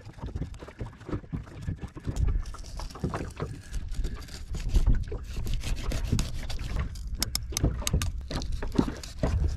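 Kitchen knife slicing a fillet off a cod on a wooden cutting board: scratchy cutting and scraping strokes as the blade works along the backbone, with a quick run of sharp clicks about seven seconds in. A low rumble of wind and water runs underneath.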